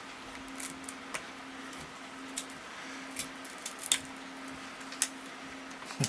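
Scattered sharp clicks and snaps of plastic shims and glass as the rear glass of a Sony Xperia Z2 is pried off its adhesive, over a steady low hum.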